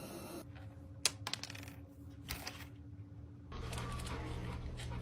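Light metallic clinks and a short rattle at a metal floor heating vent: a few sharp clicks about a second in, then a quick rattle a little past the middle, as something drops into the vent. A steady low hum comes in near the end.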